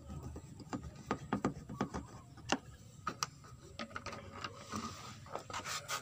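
A string of irregular small clicks and knocks from hands and a tool working at the washing machine's plastic panel, one sharper click about halfway through.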